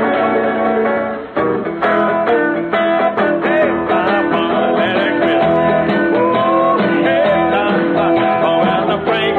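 Archtop guitar played solo: a run of plucked single notes and chords, with a brief break about a second in before the notes resume.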